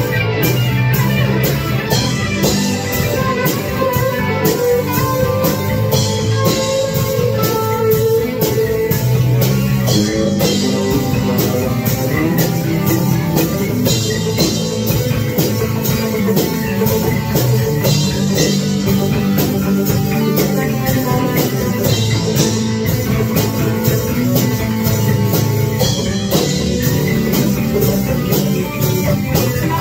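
Jackson electric guitar played in a rock jam over a steady drum beat.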